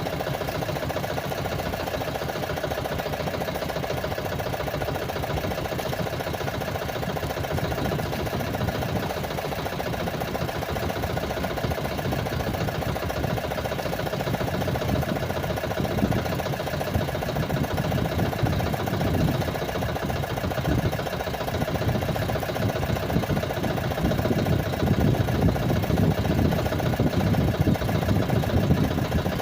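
Small engine running steadily at idle, with an uneven low rumble that grows stronger in the second half.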